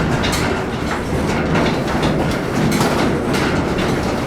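Railway car rolling, heard from inside: a steady rumble with irregular clatter and knocks of the wheels and car body over the track.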